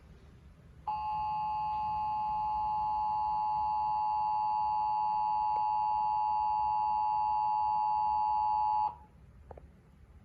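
Emergency Alert System attention signal: the two-tone alert (853 and 960 Hz sounded together), a steady, harsh dual tone that starts about a second in, holds for about eight seconds and cuts off sharply. It announces a broadcast emergency alert, here a severe thunderstorm warning.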